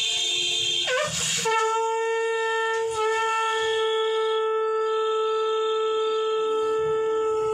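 Conch shell (shankh) blown in one long blast: the note wavers and slides up about a second in, then holds steady.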